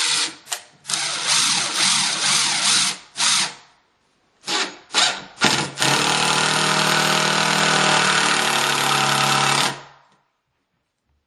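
Ridgid Gen 4 brushed-motor cordless impact driver hammering as it drives a screw into wood. It goes in several short trigger bursts, then runs steadily for about four seconds before stopping near the end.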